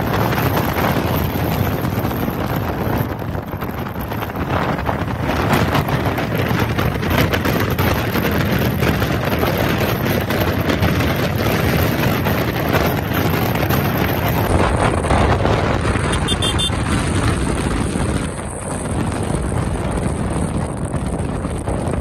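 Wind rushing over the microphone while riding a motorcycle, with the bike's running and road noise underneath.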